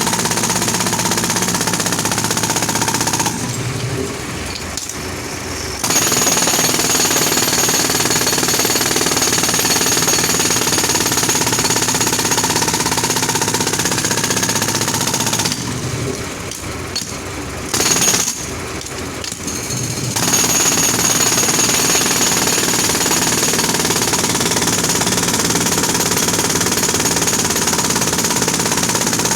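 Compressor-powered road drill hammering into the road surface, a dense, rapid chatter. It stops twice, briefly about three seconds in and for several seconds past the halfway mark, leaving the lower hum of the compressor engine.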